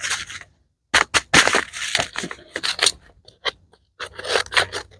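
Paper seed packet being handled, crinkling and rustling in irregular crackly bursts.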